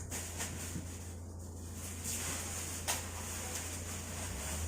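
Room tone: a steady low hum under faint background noise, with one sharp light click about three seconds in.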